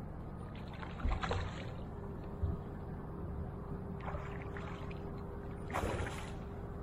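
A hooked largemouth bass splashing at the water's surface beside the boat as it is reeled in: a few short splashes, the loudest about six seconds in, over a faint steady hum.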